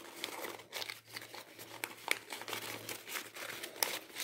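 Folded origami paper modules crinkling and rustling as hands fit them together, a run of irregular small crackles.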